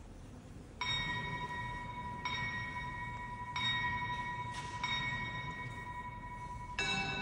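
Bells of the Gdańsk astronomical clock striking: one bell struck four times, about every second and a quarter, each note ringing on into the next, then a second, lower-toned bell struck once near the end.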